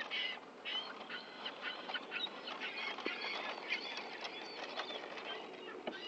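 A flock of seagulls calling, many short squawks overlapping one another without a break.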